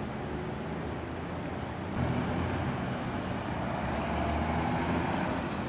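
A box truck driving past, its engine hum growing louder from about two seconds in, with a faint high whine over it.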